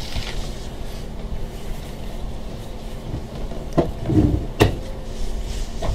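Low-level handling noise inside a car, with two sharp clicks or knocks a little under a second apart about two-thirds of the way through and a short rustle between them, as a person settles into a freshly installed seat.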